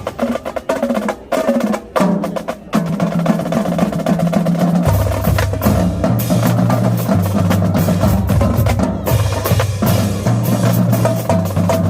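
Marching drumline playing: a few separate sharp strikes with pauses, then a dense, steady drum pattern, with low bass drum notes joining about five seconds in.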